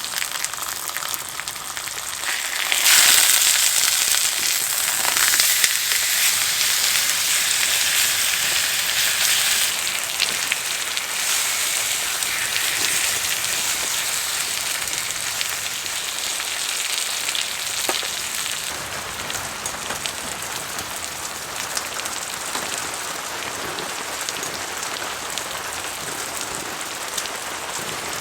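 Pork chop, still partly frozen, sizzling in a hot frying pan. The sizzle jumps louder about three seconds in and slowly dies back down, over a steady patter of rain on the tarp.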